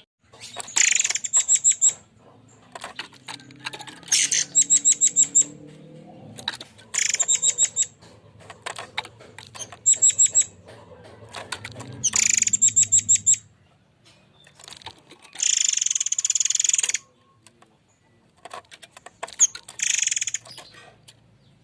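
A murai air mancur bird giving its harsh 'tembakan' call: about seven high-pitched rattling bursts of rapid ticks, each a second or so long and a few seconds apart.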